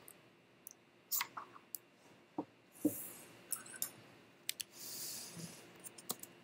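Irregular clicks and taps of someone handling and clicking a computer, with a few duller knocks and two short hissy rustles about three and five seconds in.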